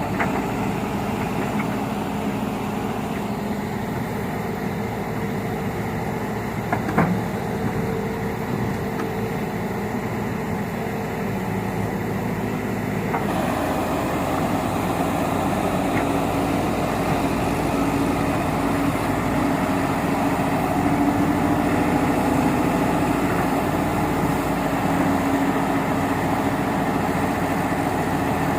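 Excavator's diesel engine running steadily with a single knock about 7 seconds in; about halfway through, the engine note steps up and grows a little louder as the revs rise.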